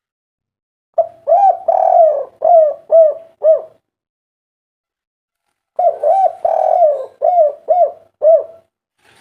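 Spotted dove cooing: two phrases of about six coos each, a couple of seconds apart. The second note of each phrase is drawn out longer than the rest.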